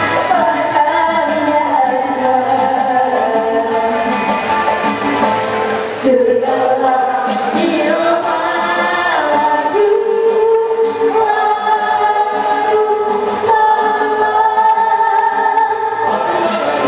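Music with voices singing, several long held notes among shorter shifting ones.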